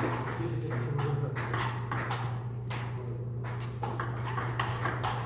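Table tennis ball clicking and bouncing in irregular sharp knocks, over a steady low hum.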